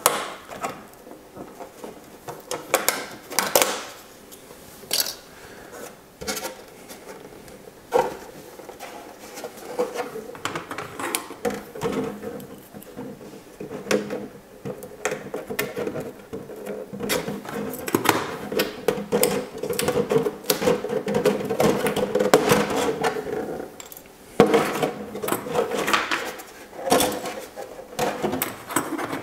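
A clear plastic RC car body being trimmed with scissors and handled: irregular snips, crackles and flexing clicks of the thin plastic sheet, over a faint steady hum.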